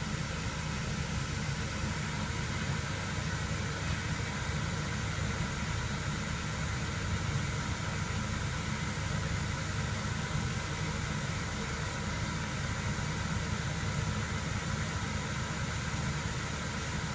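Diesel burner of an asphalt hotbox reclaimer in its 30-second post-purge cycle after being switched off: the burner blower runs on with a steady hum and hiss.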